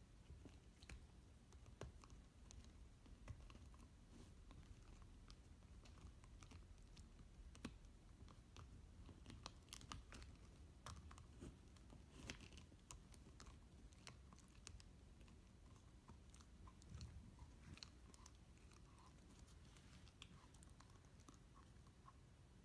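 Faint, irregular clicks and crunches of a beagle puppy chewing on a hollow plastic whiffle ball, its teeth cracking and tearing the plastic.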